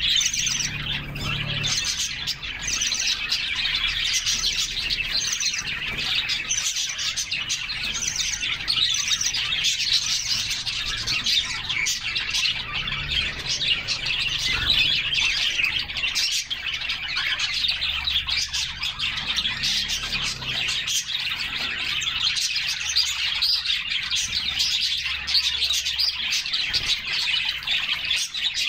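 Several canaries chirping and singing continuously in a dense chatter of overlapping high notes. A short high call repeats about once a second through the first ten seconds.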